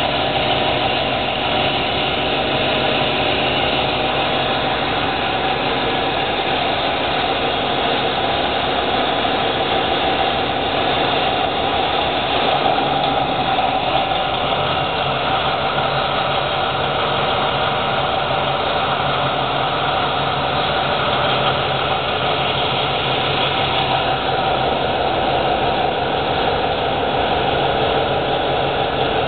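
Caterpillar D399 V-16 diesel engine running steadily at a constant speed.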